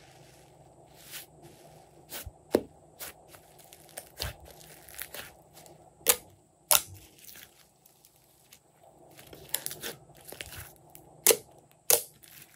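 Slime-making materials being handled up close: irregular crinkling and crackling, broken by about five sharp, loud snaps.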